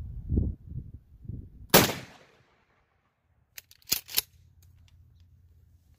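A single shotgun shot firing a rifled slug about two seconds in, with a short echoing tail. A few sharp clicks follow about two seconds later.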